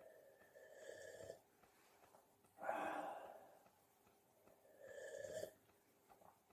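A person slurping sips of freshly boiled herbal tea from a cup: a short slurping sip about a second in and another about five seconds in, with a louder breath between them.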